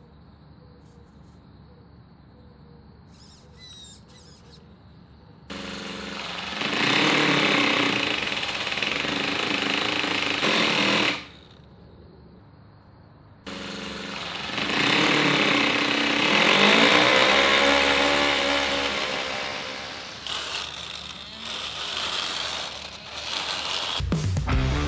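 Small two-cylinder model engine in a 1/8-scale RC car running and revving, with the pitch rising and falling. It comes in two stretches of several seconds, each starting and stopping abruptly. Music begins near the end.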